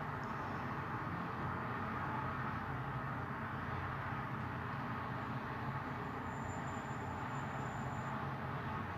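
Steady background noise with no distinct events, and a faint thin high-pitched tone for a couple of seconds in the second half.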